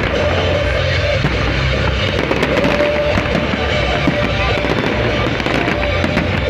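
A fireworks display: many shells bursting and crackling in quick succession, with music playing alongside.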